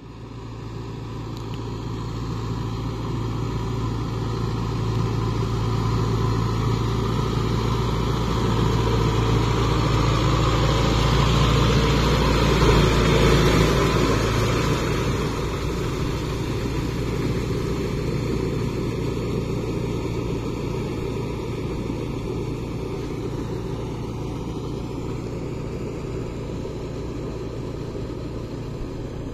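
Kubota MU5502 tractor's four-cylinder diesel engine running steadily under load while its rotavator churns through flooded paddy mud. It grows louder as the tractor comes close about halfway through, then fades as it moves away.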